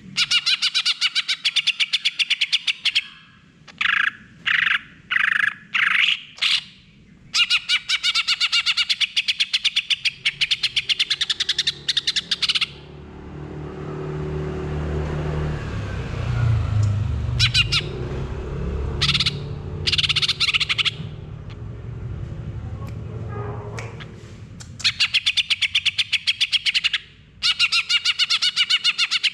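Caged male cucak hijau (green leafbird) singing in long bursts of fast chattering trills with short breaks, the rapid-fire 'gacor full nembak' song used to lure silent leafbirds into singing. In the middle a low rumble swells and fades under a few short bursts of song.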